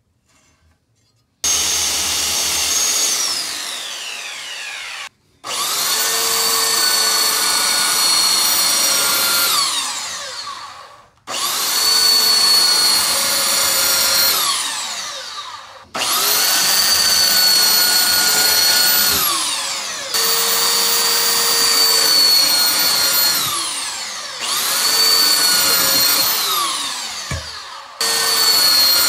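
Handheld power tool motor run in repeated bursts of a few seconds, about seven times, each starting with a high whine and falling in pitch as the tool spins down when the trigger is let off.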